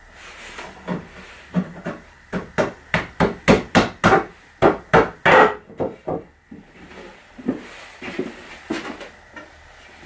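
Wooden knocks as pine boards are tapped and pressed into place in a homemade wooden bar clamp for a glue-up: a quick run of about a dozen sharp knocks starting about two seconds in and stopping about halfway, then a few lighter scattered knocks.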